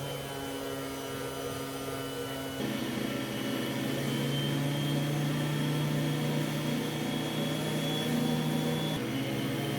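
A woodworking power tool's electric motor running with a steady hum and whine. It shifts to a louder, fuller sound about two and a half seconds in and changes again near the end.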